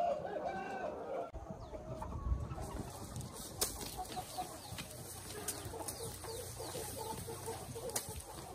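Minh Du breed chickens clucking, their calls wavering in pitch, with a few sharp chops as grass stalks are cut with a knife.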